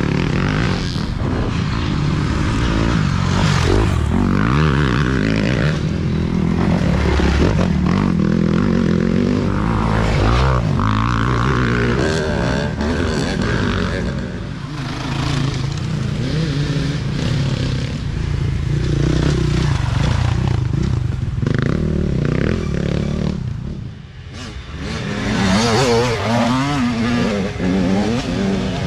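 Off-road dirt bike engines revving up and down as bikes ride past one after another on a dirt trail. There is a short lull about 24 seconds in, then another bike comes in with its engine rising in pitch.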